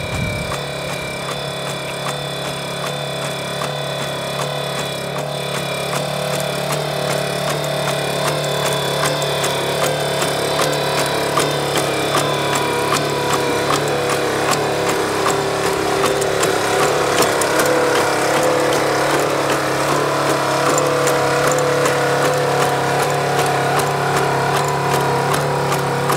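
The engine-driven hydraulic power unit of the LS3 Legged Squad Support System, a four-legged robot, running steadily as it walks, a constant drone like a small engine. It grows louder over the first half as the robot comes closer.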